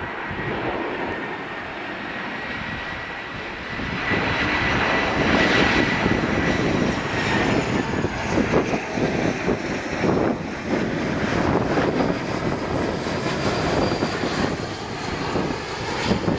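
Airbus A321's twin CFM56-5B turbofan engines on low final approach passing overhead. A steady fan whine is joined about four seconds in by a much louder rumbling jet roar. The whine dips slightly in pitch as the airliner goes over.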